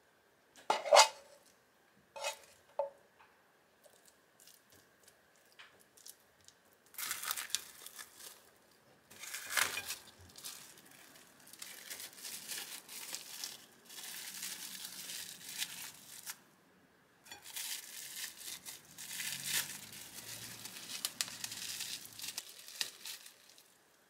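A spoon knocks against a ceramic plate a few times near the start, the plate ringing briefly. Then cling film crinkles and rustles in long stretches as it is gathered and twisted tight around rice and a thin omelette to shape omurice.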